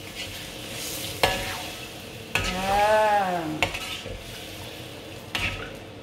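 A spoon stirring curry in a pot, with coconut milk and water just added to the fried spice paste: a low sizzle throughout, and the spoon knocking against the pot several times. About halfway through comes a brief squeal that rises and then falls in pitch.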